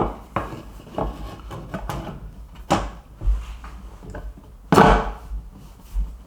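Cabinet toe kick panel being pushed and knocked onto its clips beneath the cabinets: a run of knocks and thumps, the loudest about five seconds in with a short scrape after it.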